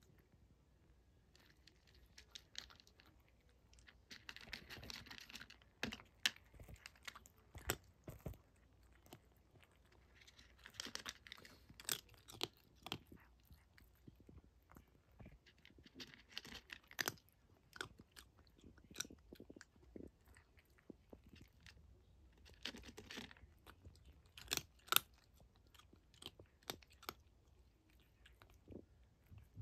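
A cat chewing and crunching dry kibble, in bouts every few seconds with sharp crunches and short pauses between.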